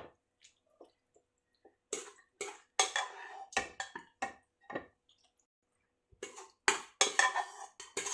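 A spoon scraping and knocking against a cooking pot in a series of short strokes, as beef masala is spooned into the rice for layering a biryani.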